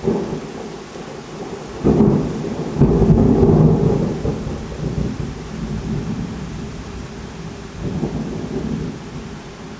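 Thunder: a sudden clap, then two louder crashes about two and three seconds in, rolling into a long low rumble that swells again near the end, over steady rain.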